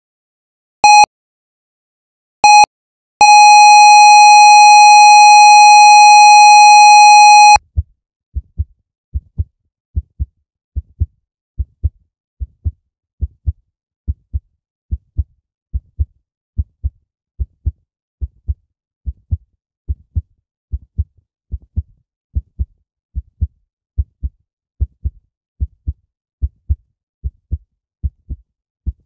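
Heart monitor sound effect: two short beeps, then a long unbroken flatline tone, the signal of cardiac arrest, which cuts off suddenly. A steady lub-dub heartbeat then starts and goes on, a little faster than one beat a second.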